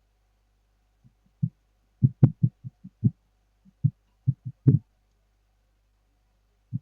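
Soft, irregular knocks and taps from tools being handled on a repair bench, about a dozen in a few seconds, two of them with a sharper click.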